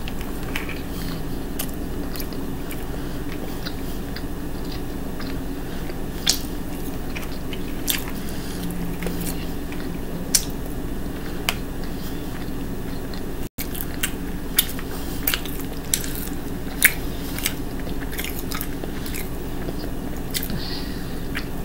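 Close-up mouth sounds of a person eating honey cornbread: chewing with frequent sharp lip-smacks and clicks, over a steady low hum.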